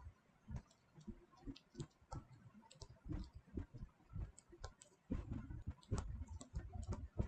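Faint, irregular light clicks and taps, scattered at first and becoming a busier run of tapping from about five seconds in.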